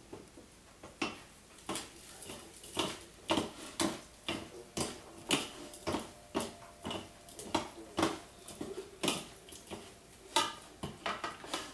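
Two wooden spoons tossing chopped meat salad in a ceramic bowl, knocking against the bowl and each other in short, sharp clacks about twice a second.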